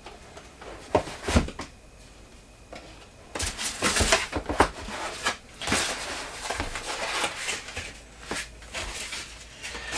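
A lens box and its packaging being opened and handled: a couple of sharp knocks about a second in, then spells of rustling and scraping with small clicks.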